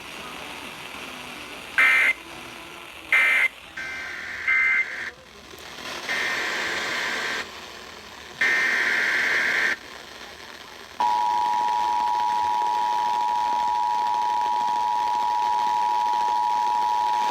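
Emergency Alert System signalling: several harsh digital SAME data bursts, then about 11 seconds in the steady two-tone EAS attention signal starts and holds, announcing an alert.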